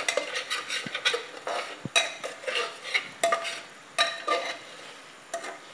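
A spoon stirring and scraping thick onion-spice masala against the sides and bottom of a pressure cooker, with irregular scrapes and ringing clinks as the masala is roasted. It grows quieter near the end.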